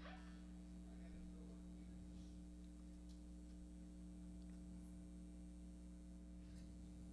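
Near silence: room tone with a steady low electrical hum.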